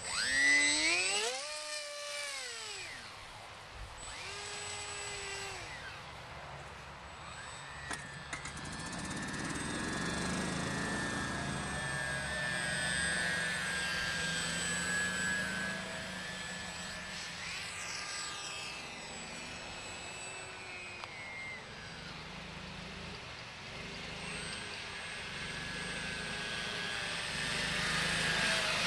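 Motor and propeller of a Wild Hawk RC model plane whining. The pitch shoots up and falls back just after the start as the plane is hand-launched, then it drones on steadily with the pitch sliding up and down as the plane flies past.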